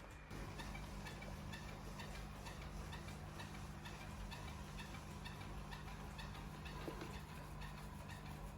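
Ecovacs Deebot robot vacuum-mop running with a faint steady hum and a light, regular ticking, a few ticks a second, as it heads back to its charging dock.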